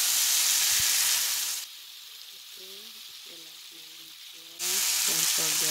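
Stir-fry of eggplant, pork and mushroom sizzling in a cast-iron skillet. The sizzle drops away sharply after about a second and a half and comes back strongly about three seconds later.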